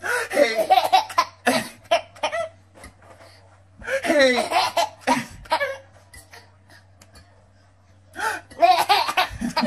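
Baby laughing in three bursts of hiccupy giggles: one at the start, another about four seconds in, and a last one near the end.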